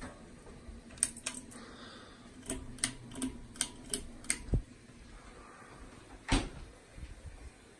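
A run of sharp clicks and taps: a quick few about a second in, a string of about seven at uneven spacing a little later, and one louder click past six seconds, over a faint low hum.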